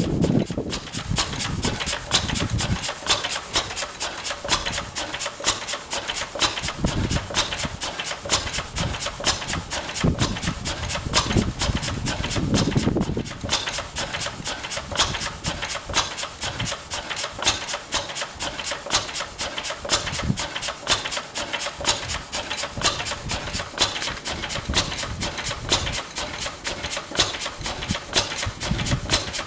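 Single-cylinder R A Lister stationary engine running steadily, with a regular beat of sharp firing strokes several times a second.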